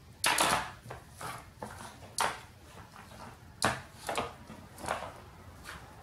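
Plastic makeup compacts clacking together and against a tiled tabletop as they are picked up and stacked. About half a dozen separate knocks, the loudest just after the start, about two seconds in and a little past three and a half seconds.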